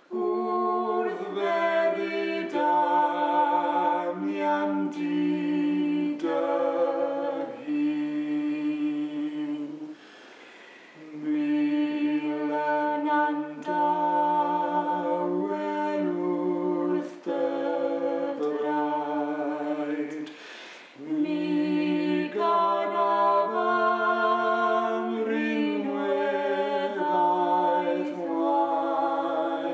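A woman and a man singing a slow hymn-like prayer together in harmony, unaccompanied, with held notes. The singing comes in three long phrases, with short breaks about ten and twenty seconds in.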